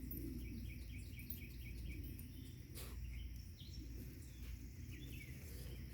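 A bird chirping faintly: a quick run of short repeated notes, about five a second, in the first two seconds, then a few scattered chirps later, over a steady low outdoor rumble. A single sharp click comes about three seconds in.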